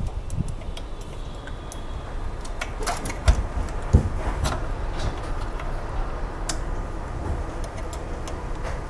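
Scattered light clicks and knocks of a small metal solenoid and its bracket being handled and fitted back into a Ricoh copier's paper-path unit, the sharpest two a little past the middle. A steady low hum runs underneath.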